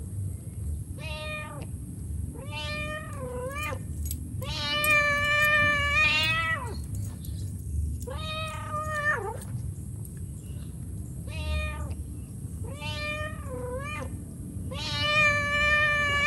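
Domestic mother cat meowing over and over to call her kittens: seven drawn-out meows, each dropping in pitch at the end, with two longer, louder calls near the middle and at the end.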